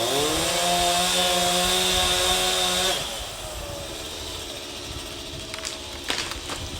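Two-stroke chainsaw revving up and held at high speed, then dropping back to idle about three seconds in. A few light knocks near the end.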